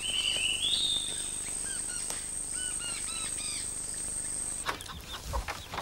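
Rainforest ambience: a steady high-pitched insect whine with repeated short chirping calls over it. The whine cuts off suddenly near the end.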